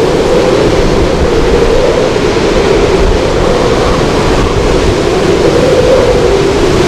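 Hurricane wind howling through overhead power lines, a wavering tone that slowly rises and falls over a loud rush of wind. Gusts buffet the microphone with a low rumble.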